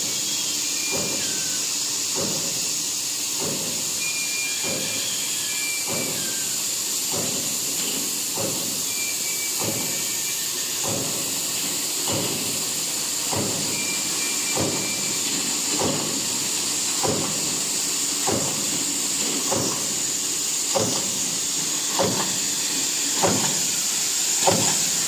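Stamping press on an automatically fed production line, striking in a steady rhythm about once every 1.2 seconds over a constant high hiss.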